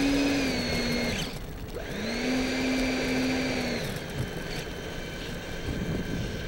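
RC model plane's motor given two short bursts of throttle, each a steady whine that slides up as it spools up and drops away when the throttle is cut, the first ending about a second in and the second lasting about two seconds. A steady rushing noise runs underneath.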